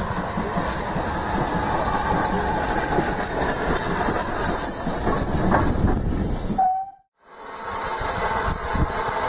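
GWR 5600 class 0-6-2 tank engine no. 5643 moving slowly past, wheels clicking over the rail joints, with steam hissing. The sound cuts out for a moment about seven seconds in, then the hissing and rumble return.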